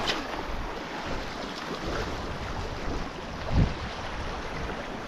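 Sea wind and rough water washing against the shore make a steady rushing noise, with wind buffeting the microphone and a brief low thump about three and a half seconds in.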